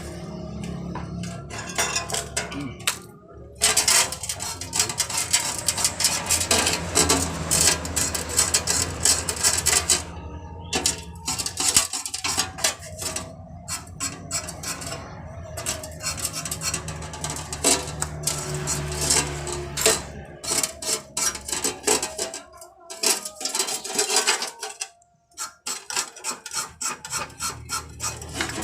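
Metal tools clinking, tapping and scraping on metal in quick, irregular strokes during refrigerator pipe repair work, over a steady low hum that dies away about three quarters of the way through.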